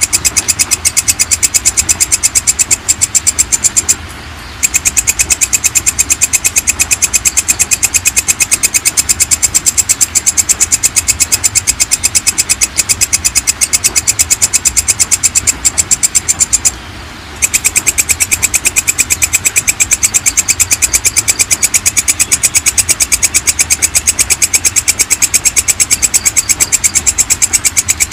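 Belalang kecek (walang kecek) insect calling: a loud, rapid, even train of high clicking chirps, broken by two short pauses, about four seconds in and about seventeen seconds in.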